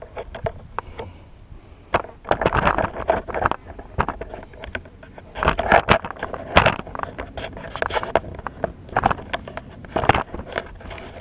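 Crinkling and crackling of plastic packaging being handled, in irregular bursts with small clicks and scrapes.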